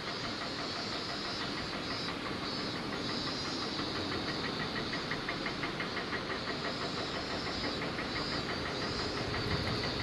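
Steady rushing of water, with a fast, even ticking higher up.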